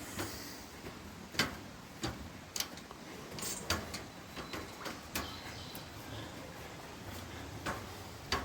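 Irregular light knocks and clicks of someone walking and pushing up a rainforest track, over a faint steady background hiss.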